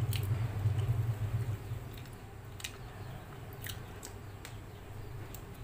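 A person chewing a mouthful of soft banana, with a few short wet mouth clicks spread through it. A low hum underneath fades out about a second and a half in.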